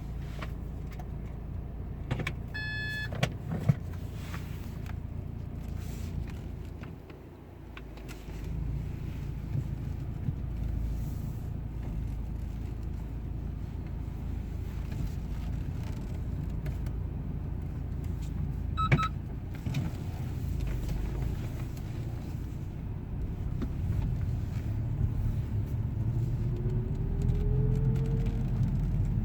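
Inside the cabin of a 2010 VW Scirocco 2.0 TSI being driven slowly: a steady low engine and road rumble. Near the end a thin whine rises in pitch as the car picks up speed. This is the whine the owner gets only in first and second gear of the DSG gearbox at low speed, cause unknown.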